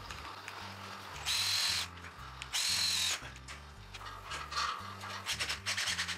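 Cordless drill spinning a bit into a PVC pipe elbow, drilling 1/8-inch pilot holes. It runs in two short bursts of about half a second each with a steady high whine, then gives a string of short quick pulses near the end. Background music plays underneath.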